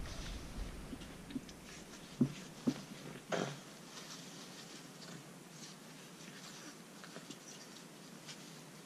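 Two French bulldog puppies play-wrestling on a puppy pad: soft scuffling and rustling, with a few light thumps in the first few seconds.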